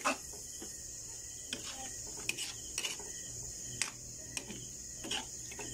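Metal spatula scraping and clinking against an aluminium wok as beef, onion and garlic are stirred, in irregular strokes about once a second over a steady high hiss.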